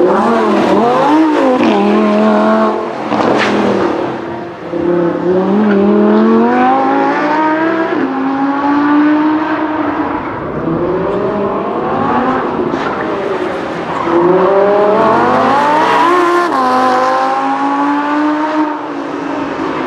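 Lamborghini Huracán LP610-4's mid-mounted V10 revving hard on a track, its pitch climbing and dropping back several times as it accelerates, lifts and accelerates again.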